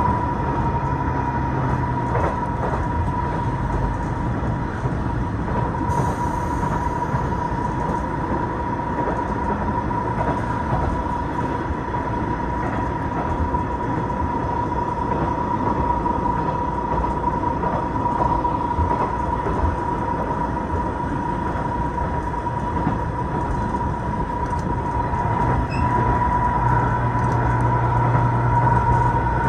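Running noise of a diesel railcar heard from inside the car: a steady rumble of wheels on rail and engine, with a constant high hum. A deeper drone comes in near the end.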